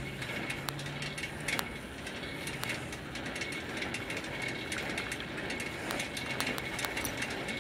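Bicycle freewheel hub clicking as the bike coasts, over a steady rolling noise of tyres on asphalt.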